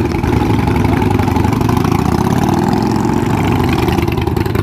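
Motorcycle engines running steadily at low speed.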